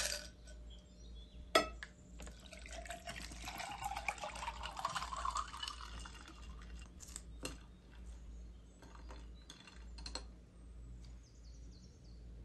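Water poured from a plastic bottle into a glass of ice cubes for about four seconds, the pour rising in pitch as the glass fills. A sharp clink comes just before the pour, and a few light clinks and knocks follow it.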